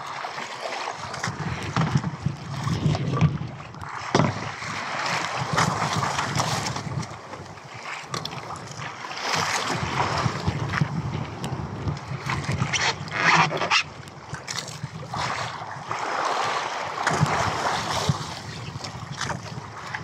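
Wind and choppy sea water splashing around a small outrigger fishing boat, swelling and easing, with a few sharp knocks.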